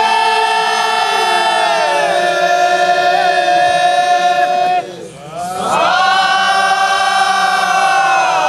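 Men chanting a Comorian moulidi devotional hymn in long, drawn-out held notes. The melody steps down in pitch about two seconds in and slides lower into a brief break for breath near five seconds, then a new long note rises and holds.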